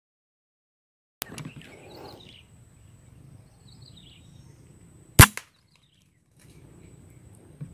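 A single sharp shot from a Bocap Predator PCP air rifle about five seconds in, with a fainter knock right after it.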